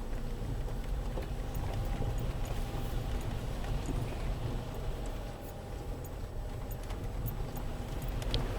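Land Rover Freelander 2 crawling over rough quarry ground: a steady low engine and drivetrain rumble with scattered small knocks and rattles.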